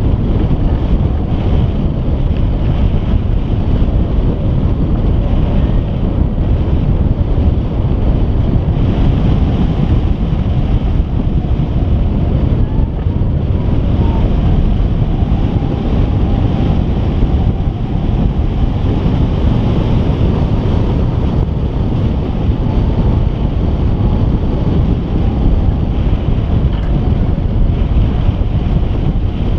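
Loud, steady rush of airflow buffeting the microphone of a camera mounted on a hang glider's wing in flight.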